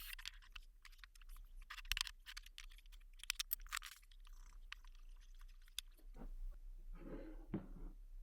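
Wood being sanded by hand with sandpaper: faint, short scratchy strokes with a few light ticks. Near the end come fuller rubbing and knocking sounds as the piece is handled.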